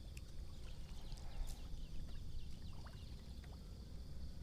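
Water lapping and sloshing against a small fishing boat over a steady low rumble, with scattered faint high chirps.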